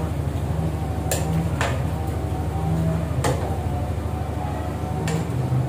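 A cooking utensil knocks against a metal wok four times while coconut-milk vegetable stew is stirred, over a steady low hum.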